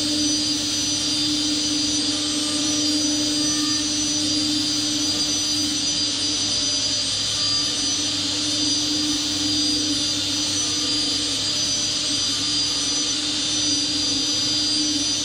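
Mazak HCR5000 five-axis machining centre milling an aluminium part with a 10 mm barrel end mill, its spindle turning at 18,000 rpm. It cuts steadily at one pitch: a strong hum with high whines above it, unchanging throughout.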